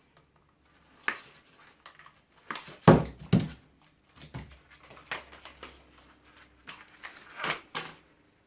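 Irregular knocks, clicks and rattles of metal scrap parts being handled during a teardown, the two loudest knocks close together about three seconds in.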